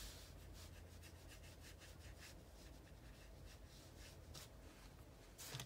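Faint, irregular strokes of a watercolour brush rubbing on paper, over a low steady hum.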